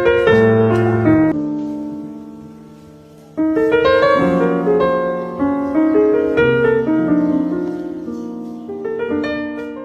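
Piano music: chords struck and left to ring and fade, in two phrases, the second starting about three and a half seconds in.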